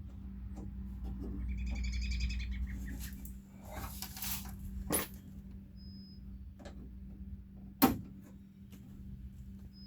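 Clicks, a short rattle and one sharp knock near eight seconds from handling a Jeep door latch mechanism and its linkage rods. A high chirping trill comes about two seconds in, over a steady low hum.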